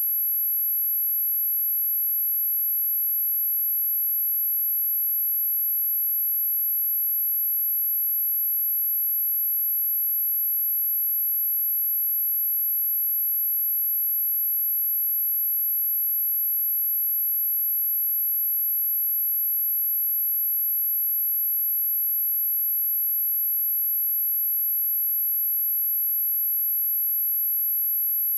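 A steady, very high-pitched pure sine-wave test tone at 11656 Hz, held at one pitch and level without a break, as used to test speakers and to shake water and dust out of them.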